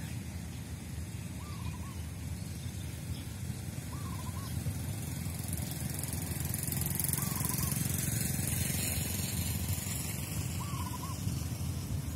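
A bird's short two-note hooting call, given four times about every three seconds, over a steady low rumble of wind on the microphone.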